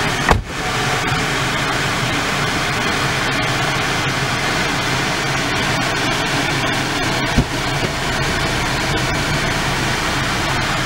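A steady mechanical hum with a hiss over it, like a running motor or fan, broken by a dull thump about a third of a second in and another about seven seconds in.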